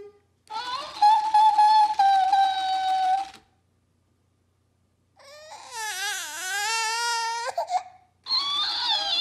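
A toddler crying, and a talking hamster toy playing each cry back at a higher pitch. About half a second in, the toy repeats a cry for about three seconds. After a pause, the toddler cries for about two seconds with a wavering pitch, and near the end the toy plays that back.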